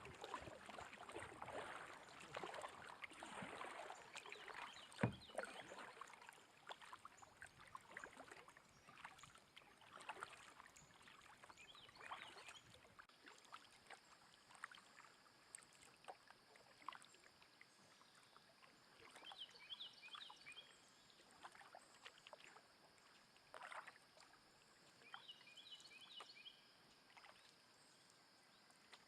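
Faint kayak paddling on a river: the paddle dipping and splashing, with water trickling off the blade, and one sharp knock about five seconds in. Later the splashing fades, and a few groups of short high chirps come through.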